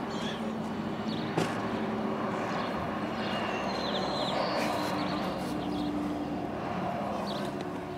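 A steady engine drone with a slowly shifting pitch, and one sharp click about one and a half seconds in.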